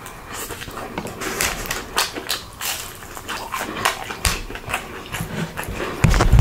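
Food being bitten and chewed close to the microphone: a dense run of crisp crackles and wet smacking, with a louder, deeper bite near the end.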